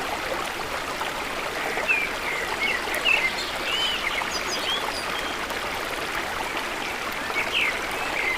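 Steady trickling, running water, with short high chirps scattered over it that sound like small birds.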